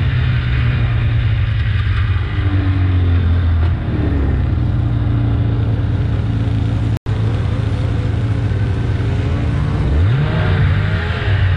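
Snowmobile engine running under way, its pitch rising and falling with the throttle and climbing near the end, over a steady rush of noise. The sound drops out for an instant about seven seconds in.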